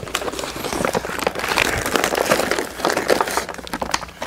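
Clear plastic vacuum-pack wrapping being torn and pulled off a radiator cooling fan assembly, an irregular run of plastic rustling and crackling.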